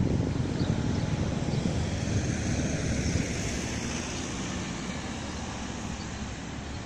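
Interior running noise of a city bus on the move: a steady low rumble of engine and tyres with a rushing hiss on top, the hiss swelling a little in the middle and the whole easing slightly toward the end.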